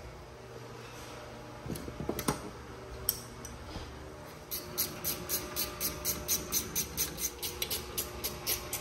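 A few scattered metallic clicks and knocks, then from about halfway through a steady run of quick, even clicks, about five a second, typical of a hand ratchet snugging a brake caliper bolt.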